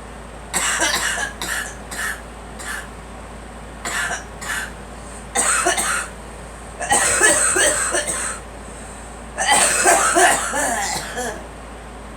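A girl coughing in a series of fits: a few short coughs in the first seconds, then two longer strings of coughs, starting about seven and nine and a half seconds in.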